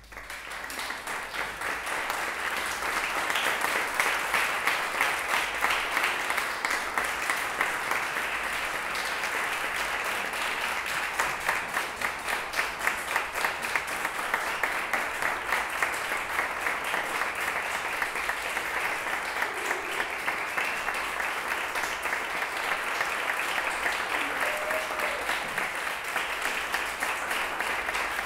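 Audience applauding: the clapping breaks out suddenly from silence, fills out over the first few seconds and then carries on steadily.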